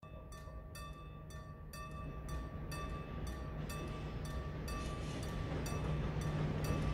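Level crossing warning bell ringing about twice a second. Under it, the low hum of an approaching train, an electric locomotive of class 441, grows steadily louder.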